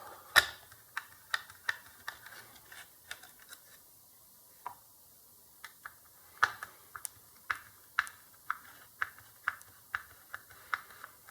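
Screwdriver unscrewing small screws from a circuit board in a plastic housing: a string of short, sharp clicks and taps, irregular, with a pause of a second or two about halfway through.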